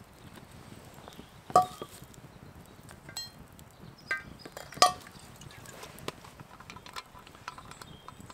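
A spoon clinking against a mixing bowl twice, about three seconds apart, each clink ringing briefly, with a few lighter taps and clicks between, as tablespoons of olive oil are spooned into flour.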